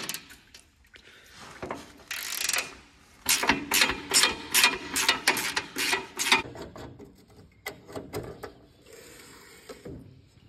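Hand ratchet wrench clicking as a socket undoes a grille bolt, in a quick run of strokes about three a second.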